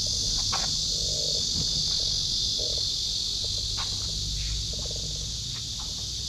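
A steady, high-pitched chorus of insects, with a low rumble underneath and a few faint short knocks.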